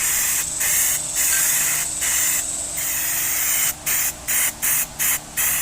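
Paint spraying onto a dash pad in short hissing bursts for a thin base coat, the bursts coming shorter and quicker near the end.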